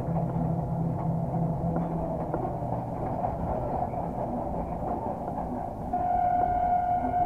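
LDH diesel-hydraulic locomotive running along the track, with a continuous rumble of engine and wheels; its low engine hum drops away after about two seconds. Near the end the locomotive's horn sounds one steady note, held on.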